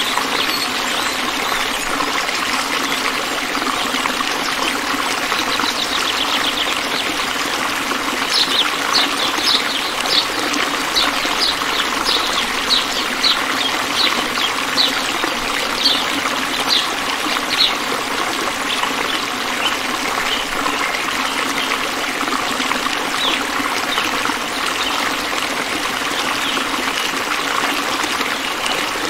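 Water trickling and splashing steadily down a small homemade tabletop fountain. In the middle there is a run of sharp little ticks, about two a second, for some ten seconds.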